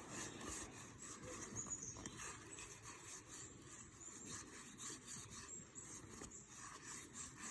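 Baseball trading cards being flipped through one after another, with faint repeated rubbing and sliding of card against card.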